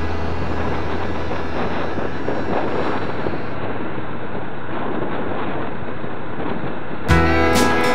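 A steady rushing noise, with country music with guitar starting about seven seconds in.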